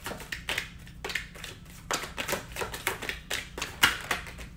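A tarot deck being shuffled by hand: a run of quick, irregular card flicks and taps, with the sharpest one near the end.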